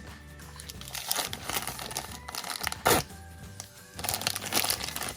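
Plastic blind-bag wrapping crinkling and tearing as it is opened by hand, in two bouts, with one sharp snap a little under 3 seconds in, over background music.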